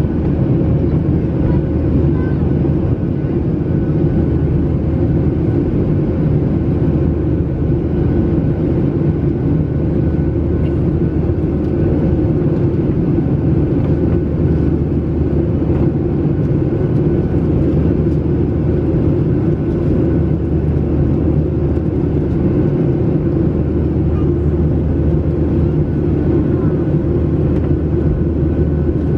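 Steady low drone of a Boeing 737's jet engines and rushing airflow, heard inside the passenger cabin during the climb after take-off.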